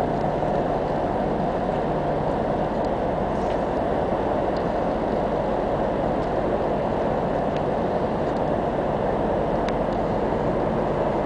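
Steady, unchanging drone of ship engines and machinery, with a faint low hum underneath and a few faint clicks.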